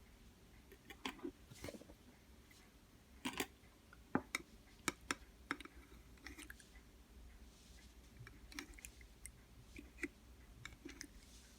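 Strawberry-syrup slime being pressed and pulled by hand: scattered, irregular small clicks and sticky pops, a handful of sharper ones between about three and five and a half seconds in.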